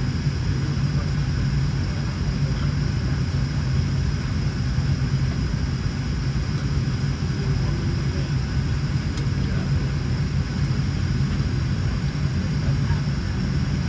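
Steady low cabin drone with airflow hiss and a faint high whine inside a Boeing 737-800 waiting at the gate, before pushback.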